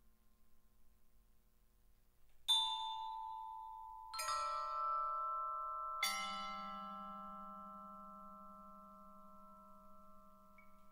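Vibraphone: three mallet strokes about two seconds apart, each note or chord left ringing long and fading slowly, so the tones pile up into a sustained chord.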